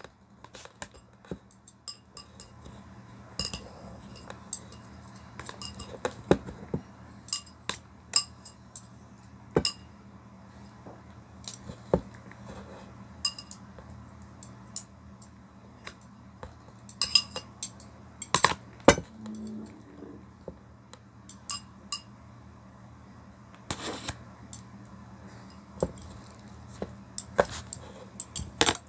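Dishes clinking as rice noodles are served: a plastic utensil tapping and scraping against a ceramic bowl and a plastic container, in sharp irregular clicks about every second, over a steady low hum.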